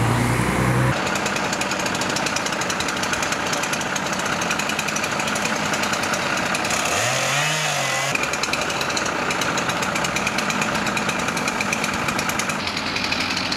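Chainsaw running steadily with a fast, even rattle, starting about a second in, as fallen tree limbs are cleared.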